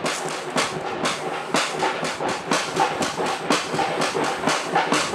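Sharp percussive hits, about three a second and slightly uneven, each ringing on in the echo of the concrete cooling tower.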